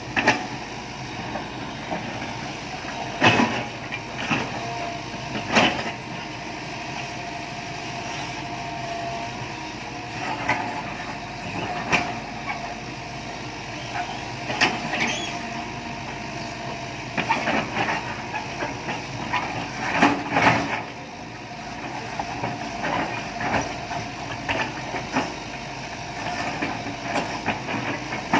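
Earthmoving machine working: its engine runs steadily under a faint held whine, with many sharp metallic clanks and knocks at irregular intervals.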